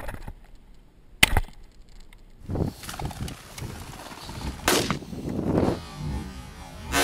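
Two shotgun shots at a flushed game bird. A sharp, loud shot comes about a second in, and a second, softer shot follows about three and a half seconds later.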